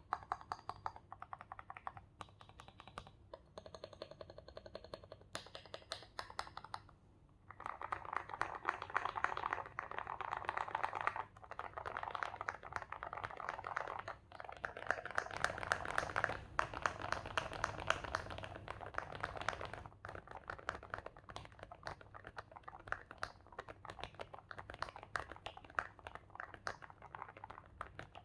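Typing on a mechanical keyboard built with lubed KTT Strawberry linear switches and SA-profile keycaps: rapid keystrokes in continuous runs, with a short pause about seven seconds in and denser, faster typing from about eight to twenty seconds.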